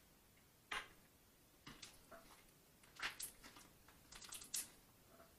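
Homemade glue slime being squished and kneaded by hand, with glitter being worked in: faint sticky clicks and crackles, a few scattered at first and a denser run of them past the middle.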